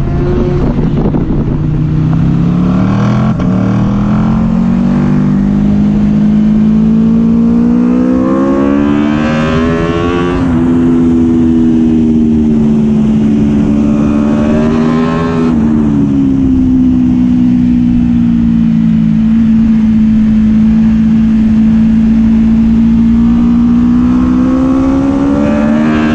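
Onboard sound of a racing superbike's four-cylinder engine pulling hard. The pitch climbs for about ten seconds, steps at about 10 seconds, drops sharply at a gear change about 15 seconds in, then holds and climbs again near the end, over wind rush on the microphone.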